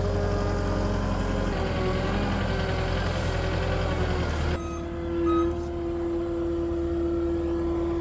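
Caterpillar 259D3 compact track loader's diesel engine running as the machine drives off the trailer ramps and over soft ground. About four and a half seconds in, the sound changes abruptly to a steadier hum with one strong held tone.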